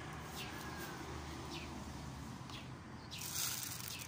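Small birds chirping now and then in short, high chirps over a low steady background hum, with one louder burst of rustling a little after three seconds in.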